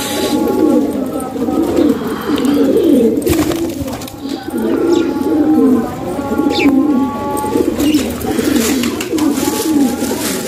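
A flock of domestic fancy pigeons cooing, many low wavering coos overlapping without a break.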